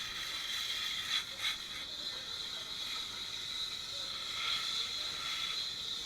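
A dish being scrubbed hard by hand at a kitchen sink: steady scratchy rubbing, with two sharp knocks about a second in.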